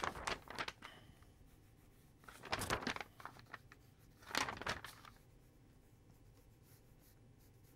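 Sheets of animation paper rustling as they are flipped on the pegs, then a pencil scratching across the paper in two short bursts of loose sketch strokes, about two seconds apart.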